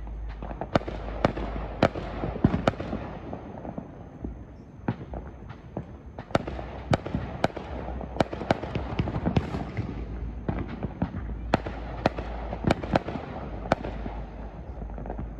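Many fireworks going off at once: aerial shells bursting in a steady run of sharp bangs and pops at uneven spacing, up to two or three a second, over a continuous crackle.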